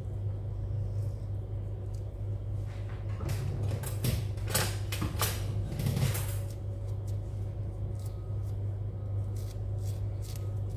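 A peeled grapefruit having its white pith pulled off by hand and shaved with a Y-shaped vegetable peeler: scraping and rustling strokes, loudest in a cluster around the middle, then lighter short scrapes. A steady low hum runs underneath.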